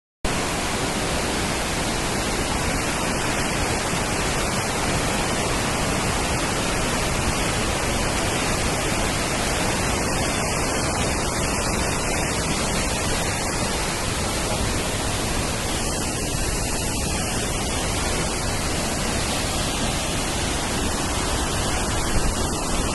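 Waterfall: water pouring and splashing in a constant, loud rush.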